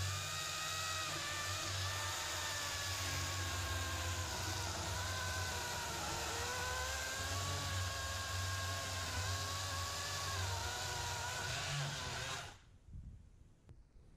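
Chainsaw cutting into a large tree stump, running steadily, with its pitch sagging as the chain bites under load about halfway through and then recovering. It stops suddenly near the end.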